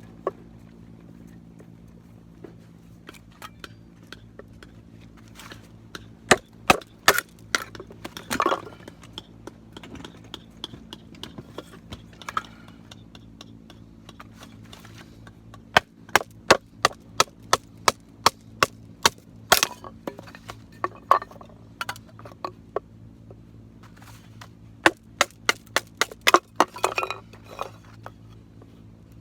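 Sharp wooden knocks, in runs of two or three a second, with a few longer splitting rasps: a knife being batoned through firewood, the baton striking the blade's spine as the wood splits.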